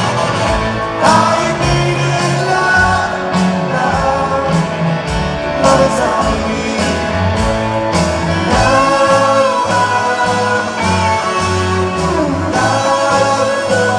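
Live rock band playing a song in concert: a sung lead vocal over guitars, bass and a steady drum beat.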